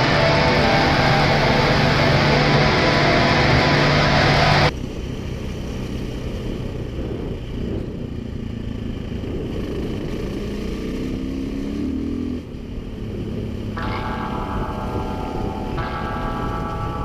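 Background music for the first four and a half seconds, then an abrupt cut to the sound of a KTM 500 EXC enduro motorcycle's single-cylinder four-stroke engine being ridden on a gravel road. Its pitch rises as it accelerates past the middle, dips briefly, then holds a higher, steadier note near the end.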